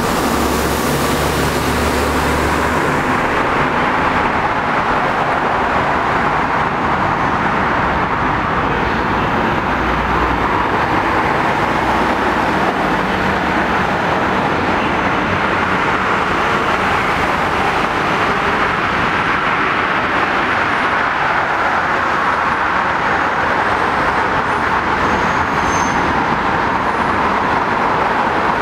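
Steady rushing noise of road traffic, even and unbroken.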